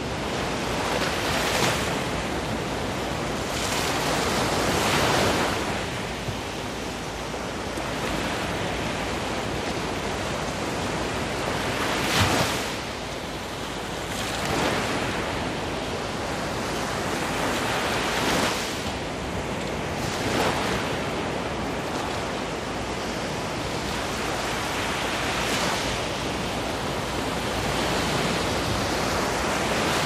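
Black Sea surf: small waves breaking and washing up onto a sandy shore, a continuous rushing wash that swells louder with each breaking wave every few seconds.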